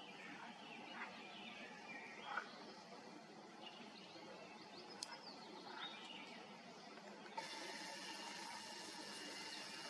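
Faint marsh evening with a few short, scattered bird chirps in the first half. From about seven seconds in, a steady mechanical whirr from the Nikon Coolpix P1000 camera's zoom lens motor, picked up by its built-in microphone.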